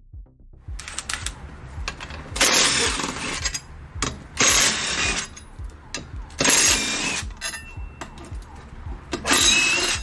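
Cordless power driver run in four short bursts of about a second each, backing out the bolts that hold a seat frame to its brackets, with small metal clinks between bursts.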